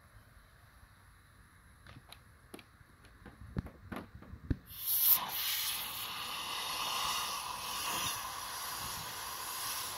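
Compressed air hissing steadily from an air nozzle, starting about halfway through after a few light taps, as it is pushed into the ports of a Detroit DD15 diesel cylinder head wetted with soapy water: a leak test to find valves not sealing on their seats.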